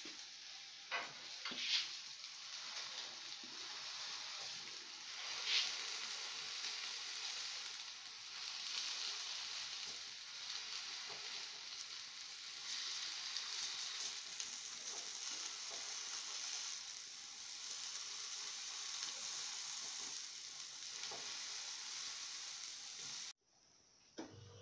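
Egg omelette with onion and tomato frying in a pan, a steady sizzle, with a few sharp taps of the spatula in the first six seconds. The sizzle stops abruptly near the end.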